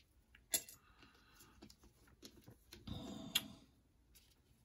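Light clicks and taps of cardboard wargame counters being handled and set down, a few sharp clicks among fainter scattered ticks.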